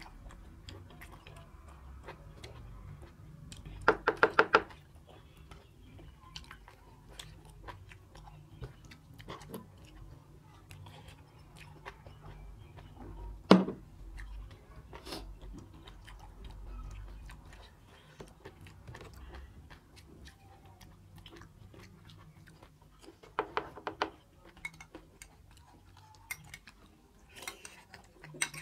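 Close-miked mukbang eating sounds: two people chewing mouthfuls of rice and goat-meat curry, with many small wet mouth clicks. A few short, louder mouth noises stand out: about four seconds in, once near the middle, and twice a little before the end.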